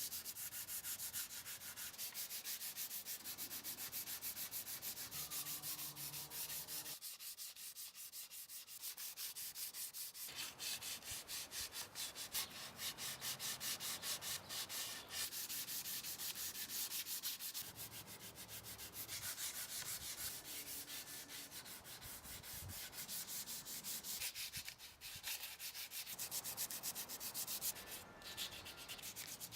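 Fine 220-grit sandpaper rubbed by hand over weathered wood in quick, even back-and-forth strokes, a continuous scratchy rasp with a few brief pauses.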